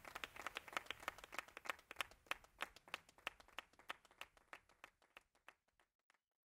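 Quiet, scattered hand clapping as the song ends, thinning out and dying away about six seconds in.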